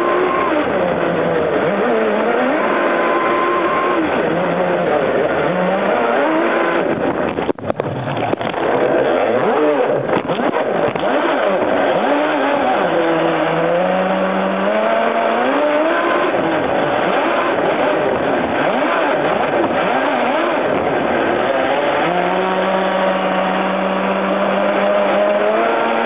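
Electric RC catamaran's motor whining, its pitch sliding up and down with the throttle, over the hiss of water spray off the hulls. About seven and a half seconds in, the sound briefly drops away with a few sharp clicks.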